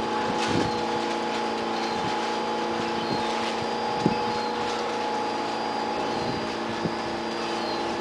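Steady mechanical hum of a New York subway car's onboard equipment, heard from inside the car, holding several steady tones, with a few light clicks and one sharper click about four seconds in.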